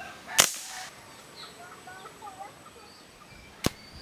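A shot from the TCCG LangLang Mouser prototype pistol about half a second in: a sharp crack with a short hiss trailing after it. A second, shorter sharp crack comes near the end.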